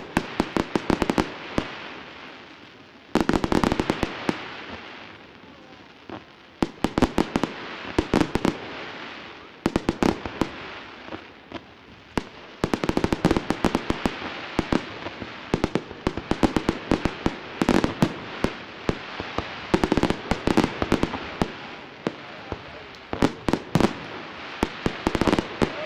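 Fireworks display: many sharp pops and bangs with dense crackling from crackling-star shells. It comes in waves every few seconds at first, then runs almost without a break from about halfway.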